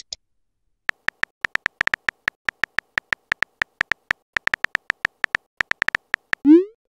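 Simulated phone-keyboard typing sounds from a texting-story app: a run of short, same-pitched ticks, about six a second and unevenly spaced, starting about a second in. Near the end comes a short rising whoosh, the app's message-sent sound.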